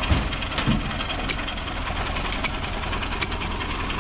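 A steady, low engine-like running sound with a few sharp clicks and a thump just after the start.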